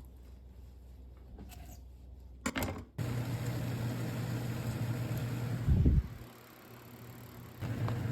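Steady mechanical hum with an even hiss, like a kitchen range-hood fan running over the stove, with a dull low thump about six seconds in. It is faint for the first couple of seconds and drops back briefly after the thump.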